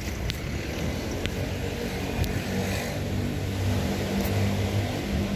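Motor vehicle engine running in the street, a low steady hum that grows stronger about two seconds in. A few sharp clicks sound over it.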